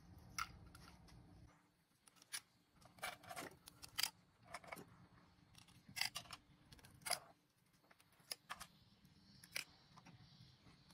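Scattered light metallic clicks and taps, about a dozen, as small steel check-valve discs and parts are set by hand into the exhaust valve pockets of a John Deere hydraulic pump housing.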